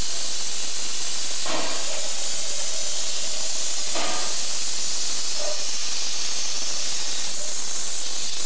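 Steam hissing steadily from a standing 3-foot narrow-gauge steam locomotive, swelling briefly twice, about one and a half and four seconds in.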